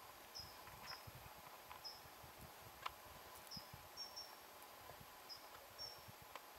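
Near silence, with about eight short, faint, high chirps at irregular spacing and a sharp faint tick about three seconds in.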